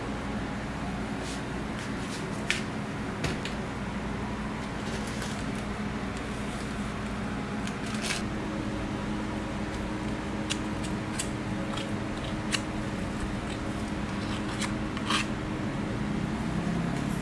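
Steady hum of kitchen machinery, with a handful of sharp clicks and taps scattered through it from a spatula, whipped-cream tub and paper waffle bag being handled.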